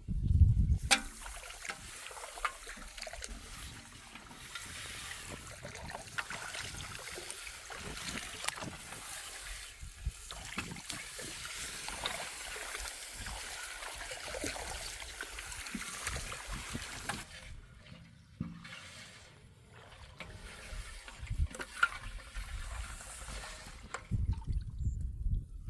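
Water trickling and splashing, a steady hiss that thins out about two-thirds of the way through, with a few small knocks and a low rumble near the start and end.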